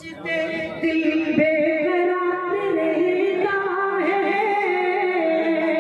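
A man singing a sad ghazal, drawing out long, wavering held notes with no distinct words.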